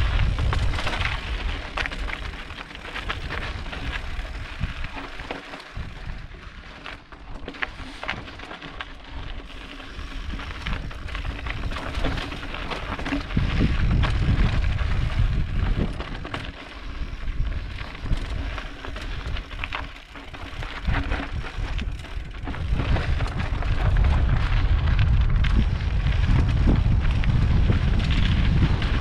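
Mountain bike riding over rocky desert trail: the tyres crunch on gravel and rock with many small rattling clicks, under a low rumble of wind on the mic that swells and eases, heaviest near the end.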